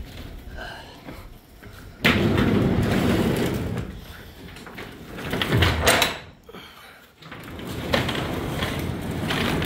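Loading sounds in a box truck's cargo bed: a sudden loud rattle and scrape about two seconds in as items are pushed in. Near the end comes the clattering rattle of the truck's roll-up rear door being pulled down.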